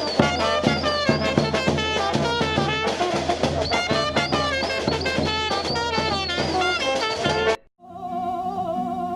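Upbeat jazzy music with brass and a drum kit, cutting off abruptly about seven and a half seconds in; after a brief gap a softer, sustained melody begins.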